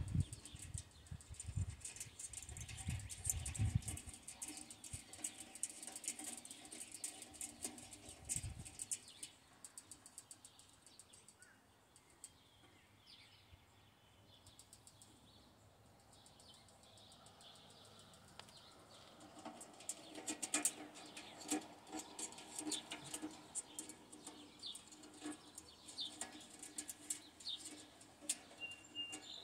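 Faint light clicks and taps of stainless sheet-metal stove parts being handled and fitted together, with a few low bumps in the first seconds. Birds chirp faintly in the background.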